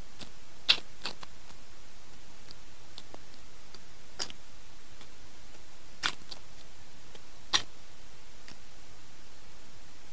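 Close-miked eating with the fingers and chewing: a few sharp, wet mouth and finger clicks spread out over a steady hiss, the loudest about a second in.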